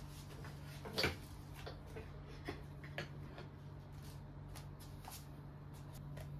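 Scattered light knocks and clicks of household objects being handled, the loudest about a second in and another about three seconds in, over a steady low hum.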